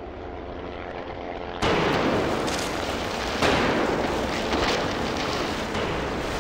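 Bombing sound effects: a propeller aircraft engine drone grows louder, then a bomb explosion goes off about a second and a half in and a second blast follows about two seconds later, with a continuing rumble of the blasts.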